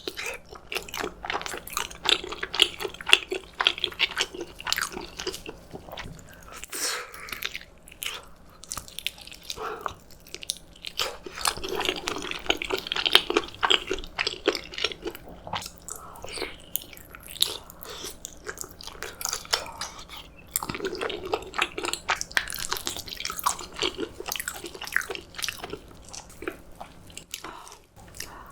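Close-miked eating: a person chewing and biting food, with many short clicking and crackling mouth sounds throughout.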